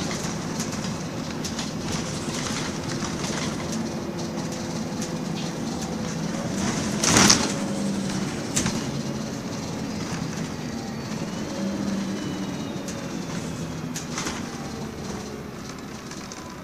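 Inside a moving MAN 18.240 single-deck bus with an Enviro 300 body: the diesel engine runs steadily under rattles and clicks from the body and windows. There is one loud clatter about seven seconds in, and the sound eases off near the end.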